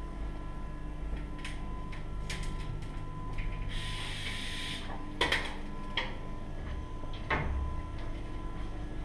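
Steady workshop hum with a faint whine, broken by a few knocks and clunks and a brief hiss about four seconds in.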